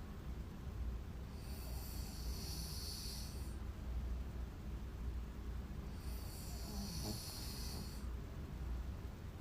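A sleeping woman snoring: two long, airy breaths about four and a half seconds apart over a steady low rumble.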